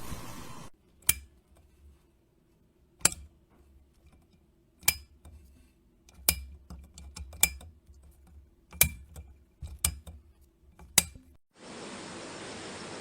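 Glass light bulb clinking: about eight sharp, ringing clicks spaced a second or two apart. Near the end a steady hiss begins.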